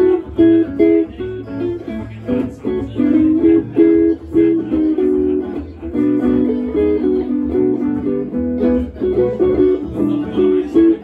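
Two electric hollow-body guitars playing a jazz instrumental: a line of quick single notes over chords.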